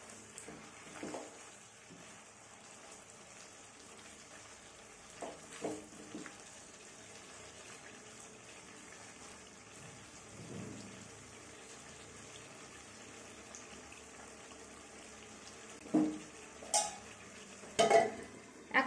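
Marinated chicken sizzling faintly in spiced oil and its own released juices in a pan, stirred with a spatula. A few scrapes of the spatula on the pan, with louder knocks near the end.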